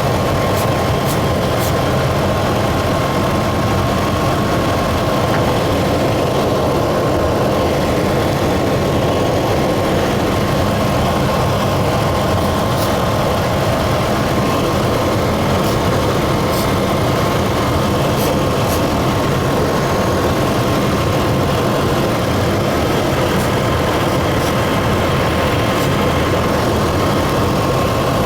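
Truck engine idling steadily, running a little rough with a vacuum leak that the owner suspects is at the throttle body gasket.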